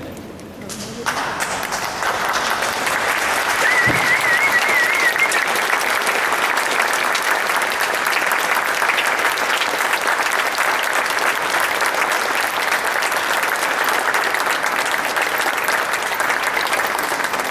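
Audience applause, starting about a second in as the choir's last chord dies away and then holding steady. A short high warbling tone sounds over it about four seconds in.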